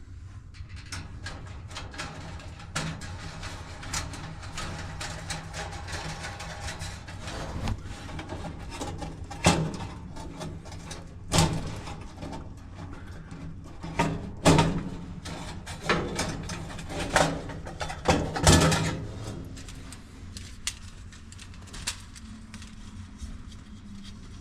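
Irregular knocks and clanks of metal panels and parts being handled as an appliance is taken apart, the loudest cluster in the middle, over a low steady hum.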